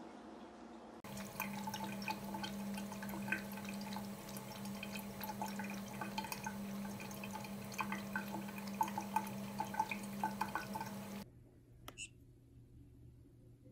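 Thin stream of water running from a bathroom tap into a sink, with many small drips and splashes as a cat drinks from the stream, over a low steady hum. It stops suddenly near the end, leaving near silence.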